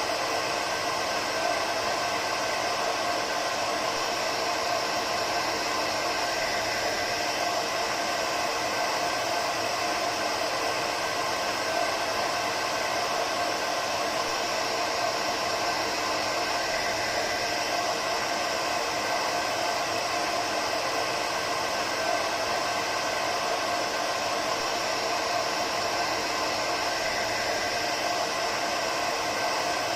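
Hair dryer running steadily: a constant blowing noise with a faint steady hum in it, unchanging throughout.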